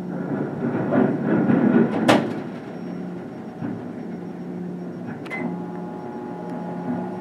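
Demolition excavator tearing a brick building apart with its grapple: rubble crashing and crumbling about a second in, ending in a sharp bang near two seconds. After that the machine runs on with a steady hum, with a lighter knock about five seconds in.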